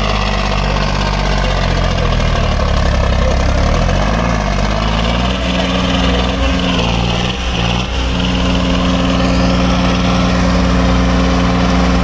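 Sonalika DI-35 tractor's three-cylinder diesel engine running under load, the tractor reared up on its rear wheels. The engine pitch wavers up and down about four seconds in, dips briefly near eight seconds, then holds steady.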